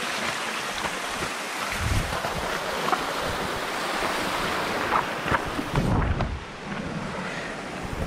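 Steady rushing hiss of a waterfall's stream, with wind buffeting the microphone in low rumbles about two and six seconds in.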